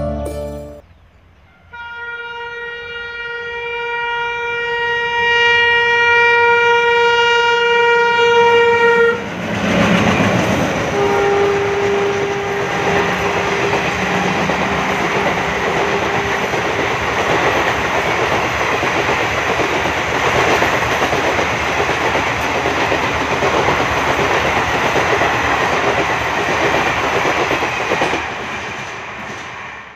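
Twin ALCO WDM-3A diesel locomotives sound a long multi-tone horn blast of about seven seconds. Then the train passes close by, with a steady noise of engines and wheels on the rails that fades near the end.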